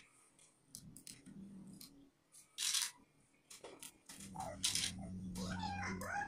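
Clicks, taps and short scrapes of a mixer's case and parts being handled and fitted together during reassembly. From about four seconds in a steady low hum joins, with a wavering higher-pitched sound near the end.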